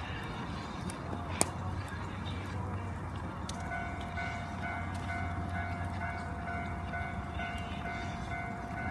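Bamboo burning in a bonfire: crackling with a sharp pop about a second and a half in, then from about three and a half seconds a steady high whistle with overtones as gas jets out of a heated bamboo section, over a low rumble of the fire.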